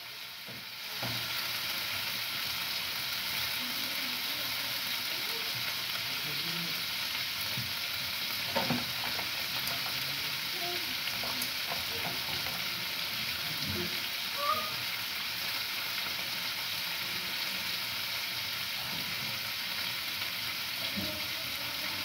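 Pieces of liver sizzling steadily in a frying pan, with a couple of light utensil knocks, one a little before halfway and one past it.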